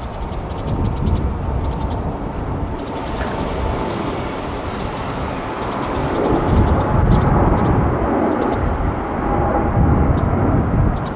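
Boeing 787-9's GE GEnx-1B turbofans at takeoff climb power: a steady, deep jet rumble with a faint whine over it, swelling louder about six seconds in as the airliner comes closer.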